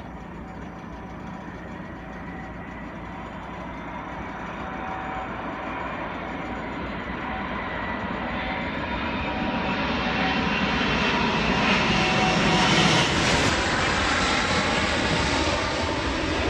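Fixed-wing airplane engines on approach. The sound grows steadily louder and brighter as the aircraft comes closer, peaks about twelve seconds in, then holds.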